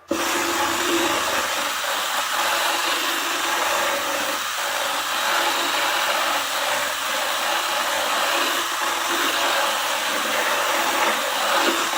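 Electric drill running steadily under load, its bit grinding away hardened Gorilla Glue foam; it starts abruptly and runs without a break.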